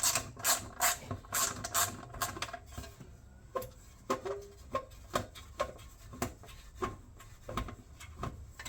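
Sharp clicks and knocks of metal tools and engine parts being handled while a lawnmower engine is taken apart on a workbench. They come about twice a second for the first couple of seconds, then sparser and irregular.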